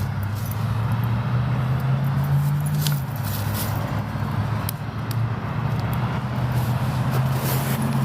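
A motor vehicle's engine running close by, a steady low hum, with a few faint clicks over it.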